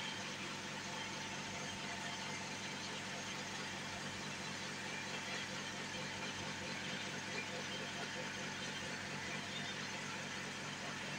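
Soap plodder machine running steadily as it extrudes a bar of soap: its electric motor drives the screw through belts and a gearbox, giving an even mechanical hum with a thin high tone over it.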